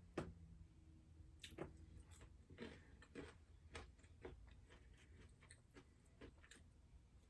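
Faint chewing and mouth sounds: a string of quiet, irregular clicks and small crunches.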